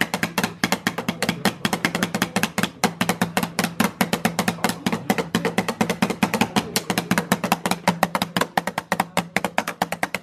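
Drumsticks struck as fast as possible on the drum pad of a Drumometer drum-speed game: a rapid, slightly uneven stream of sharp taps over a steady low hum.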